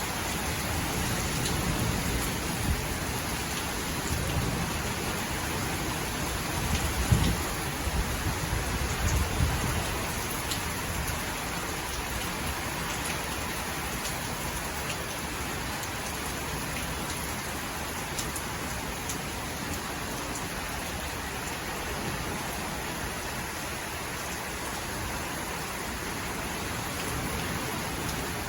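Heavy rain falling and pattering steadily on surfaces, with a few low rumbles in the first ten seconds.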